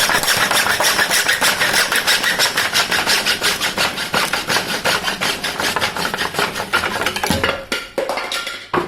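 Rapid, rhythmic rasping of a tool cutting through the carbon frame around the bottom bracket. It thins out after about seven seconds and ends with a sharp knock as the bracket comes free.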